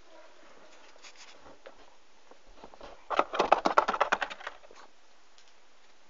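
Green-cheeked conure scrabbling in a cardboard box: a few faint taps, then about three seconds in a quick run of a dozen or so sharp taps and scratches lasting about a second and a half.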